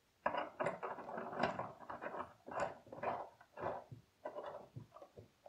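Threaded steel pipe fittings for a crank-handle knob being twisted together by hand, giving a run of short, irregular scraping rasps with brief pauses.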